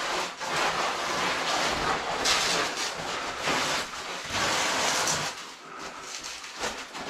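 Rustling, scuffing and scraping of caving oversuits and boots against rock while climbing down a tight rift, in uneven bursts, loudest around the middle.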